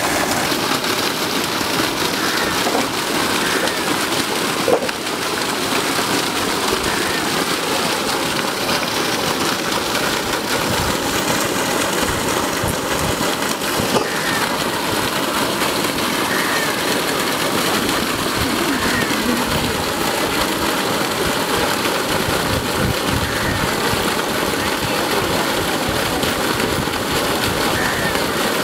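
Water gushing from an irrigation pipe and splashing into an earth channel: a loud, steady rush, with a faint steady hum underneath.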